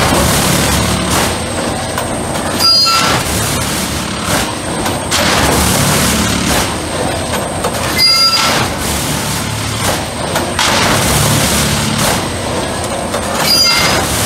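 Track tamping machine at work: the machine's steady mechanical din rises and falls in a regular cycle as the tamping tines work the ballast. A brief squeal comes three times, about five and a half seconds apart.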